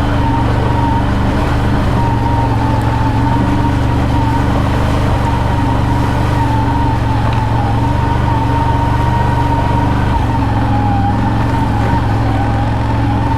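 ATV engine and drivetrain running steadily under way on a rough trail: a constant hum with a steady, slightly wavering high whine over it. The engine note shifts slightly about ten seconds in.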